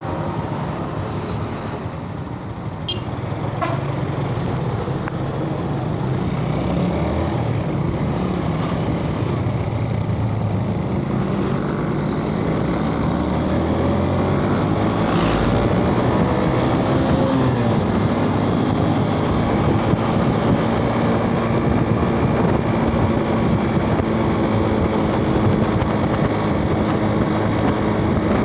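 Suzuki Smash small single-cylinder four-stroke motorbike engine running while riding, its pitch rising as it picks up speed, with wind rush and road traffic around it.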